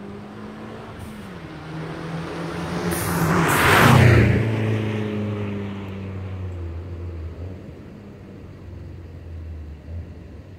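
Turbocharged Fiat 500 with a Madness aftermarket exhaust and BMC air intake driving past, its engine note rising as it accelerates towards the pass about four seconds in, with a brief hiss just before it. After that a lower note fades away into the distance.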